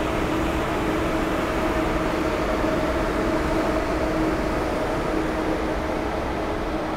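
ICE high-speed train passing close by: a steady rolling rush of wheels on rails, with a steady hum running under it.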